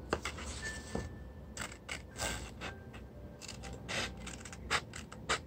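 Scissors cutting through printed paper: a series of short, irregular snips as the blades close along a line.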